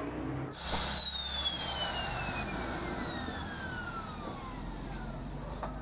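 Electric angle grinder switched off and spinning down: a high whine that starts suddenly about half a second in, then falls steadily in pitch and fades over about four seconds.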